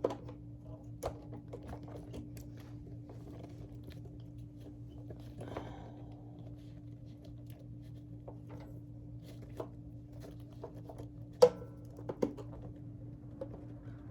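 Handling noises as the outer bag of an upright vacuum cleaner is fitted back on: scattered clicks and rustles, with one sharp knock about eleven seconds in, over a steady low hum.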